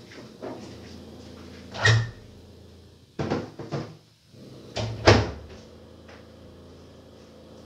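A few knocks and bumps of things being handled: one about two seconds in, a short cluster a little after three seconds, and a double knock about five seconds in, the loudest.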